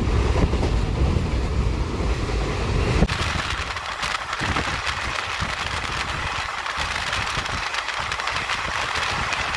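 Running noise of a moving passenger train heard inside the coach: a heavy low rumble that about three seconds in changes abruptly, with a click, to a steady hiss with little low end.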